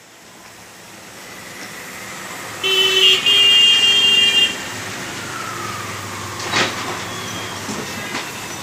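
Street traffic with engines running and a steady low hum. A vehicle horn sounds loudly about two and a half seconds in and holds for about two seconds. A single sharp knock follows a couple of seconds later.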